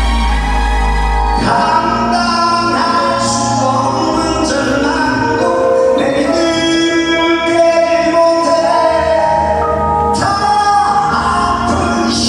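A song being sung over full instrumental accompaniment with a heavy bass line.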